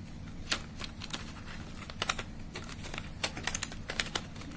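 A cardboard Doms 12-colour pencil box being handled and its tuck flap opened: a scatter of small irregular clicks and taps, several close together past the middle.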